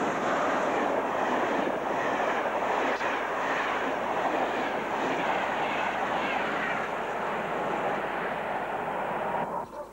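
Electric regional passenger train, locomotive then coaches, running past close by: a steady loud rush of wheels on rail and air that stops abruptly near the end.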